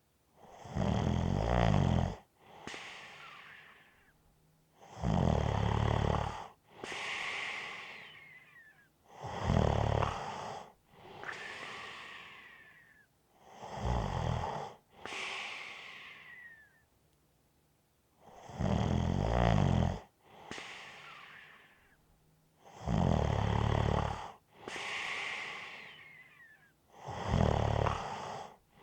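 A person snoring in slow, even cycles, seven in all, about one every four to five seconds. Each is a loud, low, rattling snore followed by a softer, breathier breath carrying a faint whistle.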